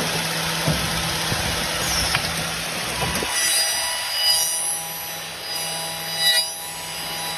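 MXZ 7203 woodworking copy-milling machine running: a rough cutting noise of the cutter in wood for about the first three seconds, then a steady high whine from the spindle over a low motor hum.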